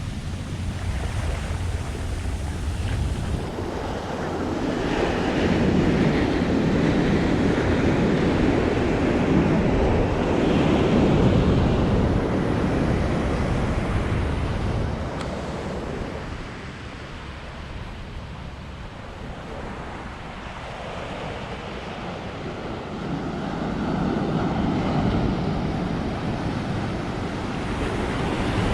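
Ocean surf breaking and washing up the beach: a long surge of wave noise that dies away, then another wave building near the end, with wind rumbling on the microphone.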